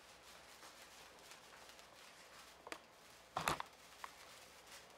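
A lit handheld wire sparkler burning with a faint, steady fizzing crackle. One short, louder noise comes about three and a half seconds in.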